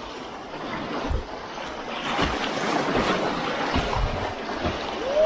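River rapids rushing and splashing around a whitewater kayak's bow, with wind buffeting the microphone in low thuds. The water gets louder about two seconds in.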